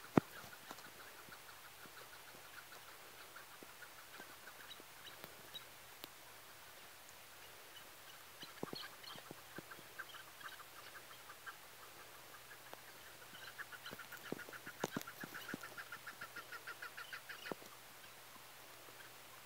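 Chukar partridges calling: runs of rapid, repeated notes in three bouts, the longest and loudest in the second half. A sharp click just after the start, and a few fainter knocks later.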